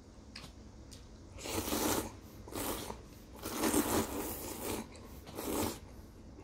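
A person slurping thin wheat noodles from a bowl of soup: four noisy slurps, the longest and loudest in the middle.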